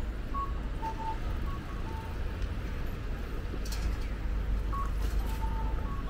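Japanese audible pedestrian-crossing signal sounding its repeating electronic two-note call, a higher note then a lower one, to mark the green walk phase. Behind it is a steady hum of city traffic.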